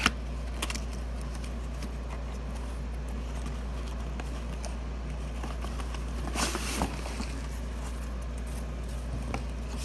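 Cardboard box being opened by hand: a few light clicks, then a brief scrape and rustle of cardboard about six and a half seconds in, over a steady low hum.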